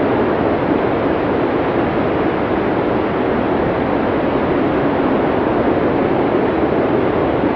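Strong wind of a mountain snowstorm blowing steadily, an even rushing noise without gusts or breaks.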